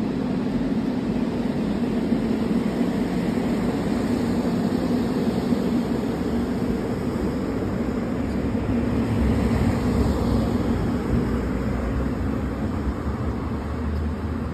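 A Penang Hill Funicular Railway car running on its rails as it passes below and moves off down the hill: a steady rumble that grows deeper and louder in the second half.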